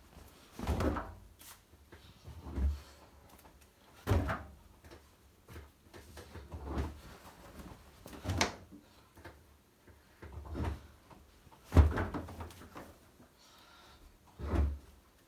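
Towels being thrown one by one into a tumble dryer's drum: a series of soft thuds and rustles, about one every one to two seconds.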